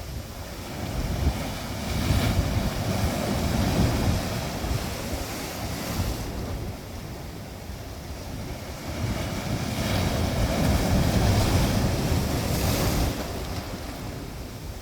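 Sea waves surging onto the shore in winter, two swells of rushing, hissing water: the first builds about two seconds in, the second about ten seconds in, each falling back to a lower wash.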